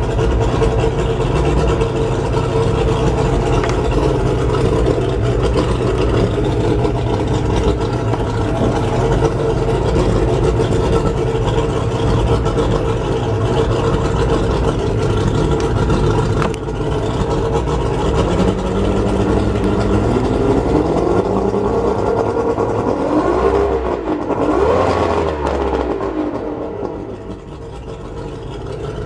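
Mercury 150 hp two-stroke V6 outboard running just after a cold start, at a steady fast idle. Past the twenty-second mark its pitch rises and falls a few times, and near the end it drops to a quieter, slower idle.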